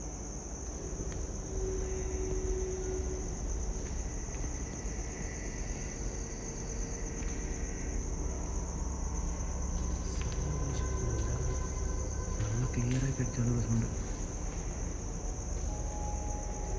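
Crickets chirping in a steady, high, unbroken trill, over a low rumble.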